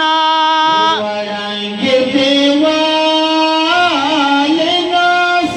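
Male voices singing a Pashto naat into microphones, with long held notes and wavering ornaments; one phrase ends about a second in and the next begins about two seconds in.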